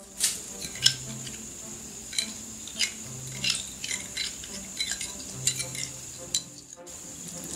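Irregular sharp clicks and taps of a glass bowl and wooden spoon against a saucepan as cornstarch solution is poured into bubbling palm-sugar syrup, over soft background music with a low repeating note.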